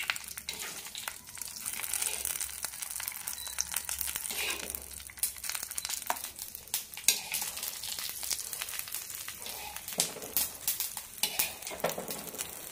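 Hot oil tempering of mustard seeds, urad dal and curry leaves sizzling on the chutney, with many small crackling pops over a steady hiss.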